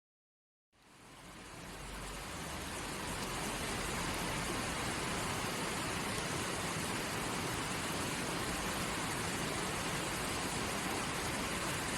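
Rushing river water, a steady even rush that fades in from dead silence just under a second in and reaches full level a few seconds later.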